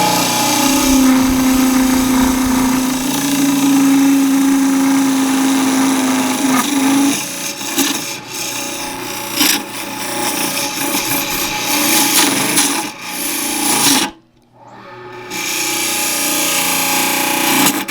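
Wood lathe running while a gouge cuts into a spinning cedar bowl blank, making a rough scraping and rasping over the motor's steady hum. The sound drops out abruptly about fourteen seconds in, then resumes a second later.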